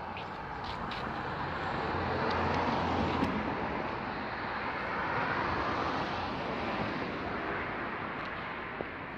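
Road traffic passing: a steady rush of tyre and engine noise that swells and fades twice.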